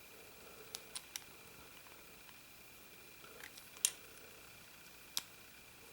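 Scattered small metallic clicks and taps from a Ruger Old Army percussion revolver being handled as its cylinder pin release is worked; about six separate clicks, the loudest about four seconds in.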